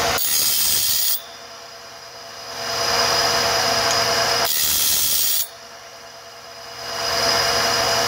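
Bandsaw-blade sharpener running: a diamond wheel grinds the face of each carbide-tipped tooth in turn over a steady motor hum. The grinding rasp swells for a couple of seconds and then drops away while the blade is indexed to the next tooth, about every four seconds, so three grinding strokes fall here.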